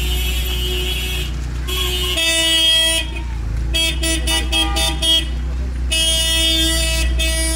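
Car horns honking in celebration: long blasts with a quick run of about six short toots in the middle.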